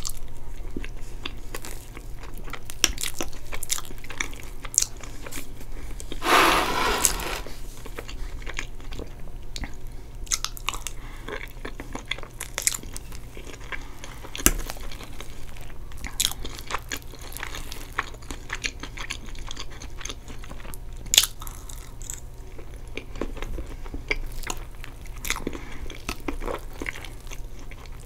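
Close-miked chewing and wet mouth sounds of eating soft chocolate cake with whipped cream and caramel sauce, with sharp little clicks of the fork against the plate now and then. A louder, noisier sound lasting about a second comes about six seconds in.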